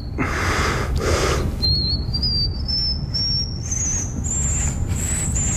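A young man whistling an extremely high note in a world-record attempt for the highest note whistled, pushing the pitch up in small steps over a few seconds to a piercing peak, then dipping slightly near the end. A breathy rush comes before the whistle starts.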